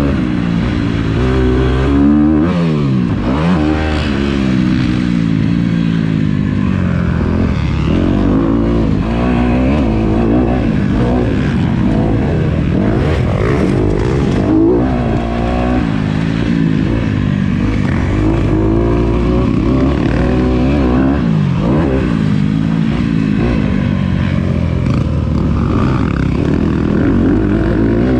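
Dirt bike engine ridden hard on a motocross track, revving up and down with the throttle and gear changes so its pitch rises and falls every second or two. The throttle is shut briefly about two seconds in and again around fourteen seconds, the pitch dropping sharply before climbing again.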